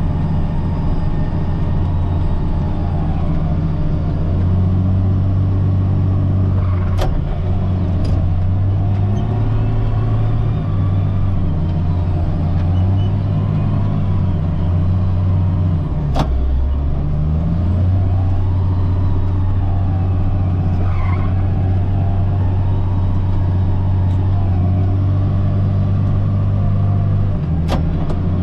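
CAT 938G wheel loader's diesel engine running under load while pushing snow, its low note rising and falling with the work and dipping briefly about halfway through. Three sharp clicks sound over it, about a quarter of the way in, halfway and near the end.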